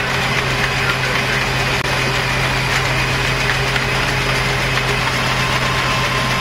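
Steady machinery hum, a constant low drone under a wash of wind noise, unbroken throughout, with no gunfire.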